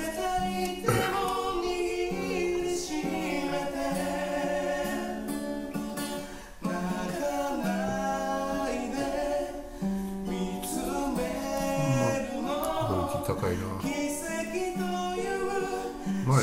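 Background song: a man singing a slow melody over instrumental accompaniment.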